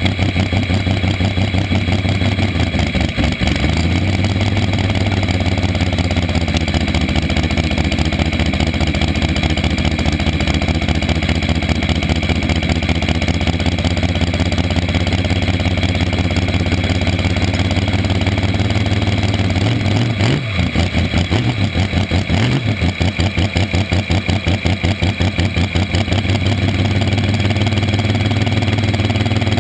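Front-engine slingshot dragster's engine idling loudly with a choppy, pulsing beat, blipped briefly twice about two-thirds of the way through.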